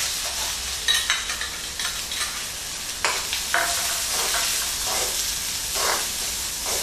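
Finely chopped onion sizzling in hot oil over a tempering of cumin, mustard seeds and fennel seeds, stirred in the pan with irregular scraping strokes about once a second.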